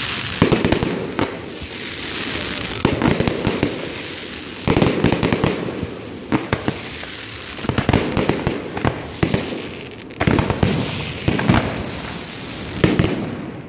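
Fireworks display: shells bursting in quick clusters every second or two, with crackling and a steady hiss between the bangs.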